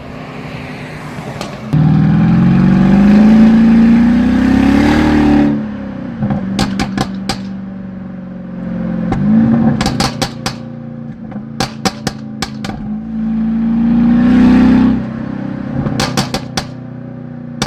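2015 Mercedes S500 (W222) twin-turbo V8 on a stage 1 tune, revved from idle: two long rising revs and one short blip. Each lift-off sets off a rapid series of exhaust pops and crackles, the overrun burble the crackle tune is set up to produce.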